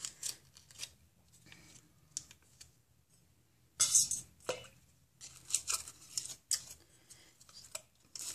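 Crinkling and rustling of a bouillon cube's paper wrapper as the cube is unwrapped and tipped into a saucepan. It comes as scattered crackles, with the loudest rustle about four seconds in.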